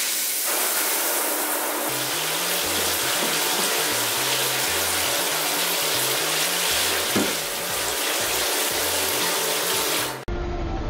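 Water spraying steadily from a low-flow handheld shower head onto tiled walls, an even hiss that cuts off suddenly near the end.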